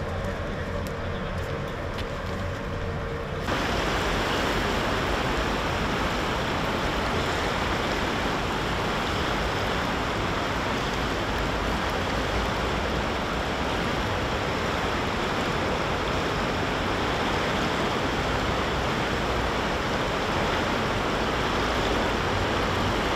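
Fast-flowing, flood-swollen river water rushing steadily. The rush starts abruptly about three and a half seconds in. Before that there is a quieter outdoor ambience with a faint steady hum.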